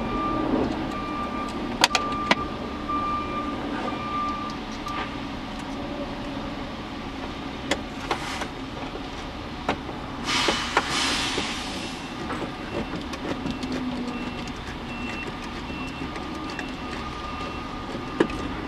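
Steady background noise of an industrial area, a low hum with a faint steady whine, with a few sharp clicks of a screwdriver working the screws on the side of a car's glove box. A rushing hiss swells and fades about ten seconds in.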